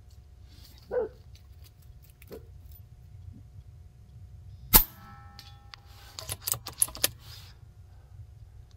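One shot from a Daystate Huntsman Revere .22 pre-charged pneumatic air rifle fitted with a 0 dB long moderator, a sharp report a little before the middle, with a brief ringing tone after it. A quick run of metallic clicks follows about a second and a half later as the bolt is worked to load the next pellet.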